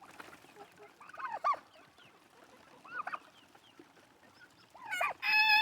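Poultry calling: a few short, faint squawking calls, then near the end a loud, long, steady-pitched call.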